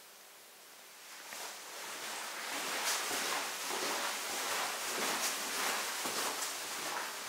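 Footsteps on a hard floor at a steady walking pace, with clothing rustling. They start about a second in, after a near-quiet moment.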